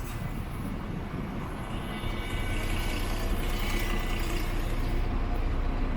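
Wind buffeting the microphone over street traffic, with a vehicle passing and growing louder from about two seconds in.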